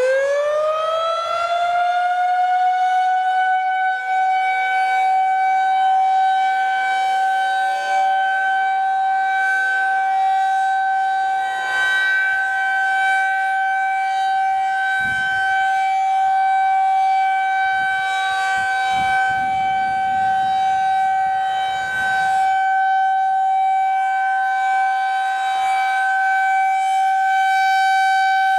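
Federal Signal 2001-SRN outdoor warning siren sounding its weekly test: the rising glide of its wind-up levels off within the first couple of seconds, then it holds one steady, loud tone.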